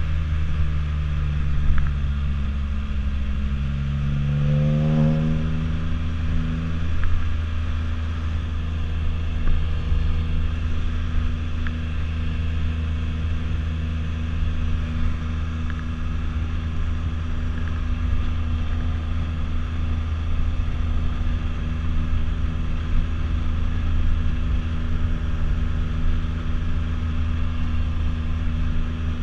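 Can-Am Spyder F3-S three-wheeler's Rotax 1330 inline-three engine running under way, over steady wind and road rumble. About four seconds in, the engine note rises quickly as it accelerates, then it settles into a steady cruise.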